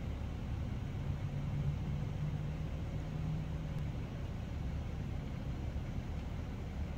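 Steady low outdoor rumble, with a faint low hum that comes in about a second in and fades out around four seconds in.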